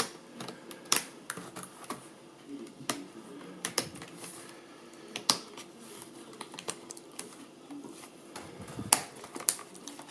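Irregular plastic clicks and taps of a Toshiba Tecra R840 laptop keyboard being handled and worked free of its bay, with its keys clattering; the loudest click comes about nine seconds in.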